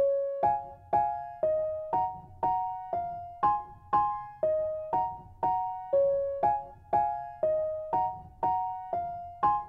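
Background music: a soft piano melody of struck notes, about two a second, each fading before the next.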